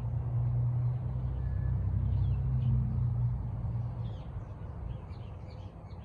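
Birds calling over a low rumble that swells and then fades away about four seconds in.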